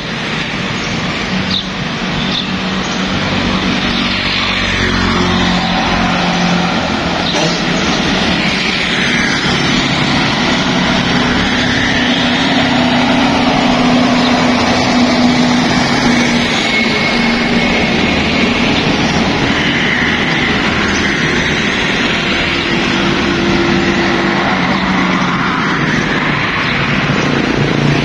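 Road traffic on a highway: heavy trucks and motorbikes passing steadily, a continuous rush of engines and tyres with engine hum swelling and fading as vehicles go by.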